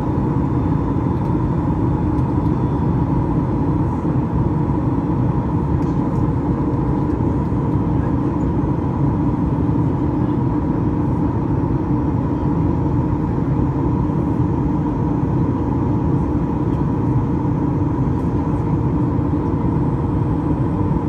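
Steady cabin noise inside a Boeing 737-8 Max in flight: the drone of its CFM LEAP-1B engines and the rush of air past the fuselage, with a steady mid-pitched hum over it.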